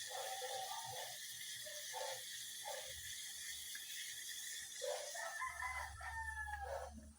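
Chickens in the yard: a few short clucks, then a rooster crowing one long call about five seconds in, over a steady high hiss that cuts off suddenly at the end.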